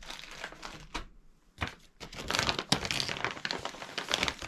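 Crinkling of small packets of dried herbs being handled, in irregular crackles that grow busier and louder in the second half.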